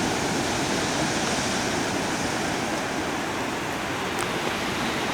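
Sea surf washing onto a sandy beach: a steady, continuous rush of waves.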